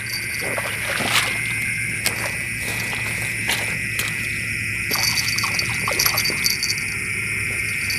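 Steady high-pitched night chorus of frogs and insects, with a few sharp clicks and some rustling of grass as a hooked catfish is grabbed from the bank.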